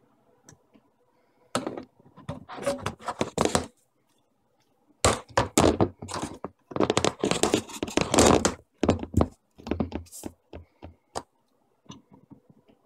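PVC pipe pieces and fittings knocking and clattering against the countertop as they are handled and pressed together, in two bursts of quick knocks with a few scattered knocks near the end.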